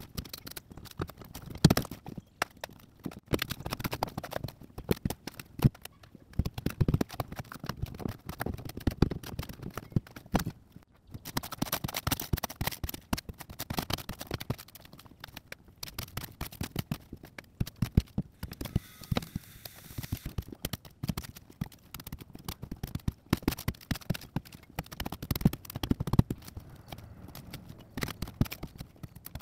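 Rotted marine plywood being pried and broken out of a fiberglass boat transom with a long-handled bar: irregular knocks, cracks and scrapes of the bar against the wood and fiberglass.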